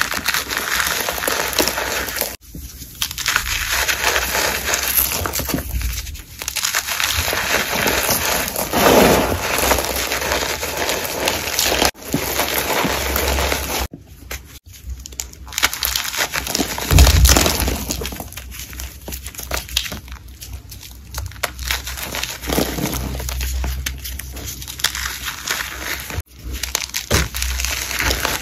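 Blocks of gym chalk (magnesium carbonate) being crushed and crumbled by hand into powder: dense, grainy crunching and crackling, cutting out abruptly for a moment several times.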